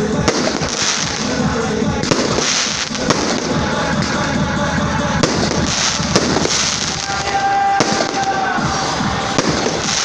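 Fireworks display: sharp bangs of shells bursting every second or two, over a continuous crackle, with music playing underneath.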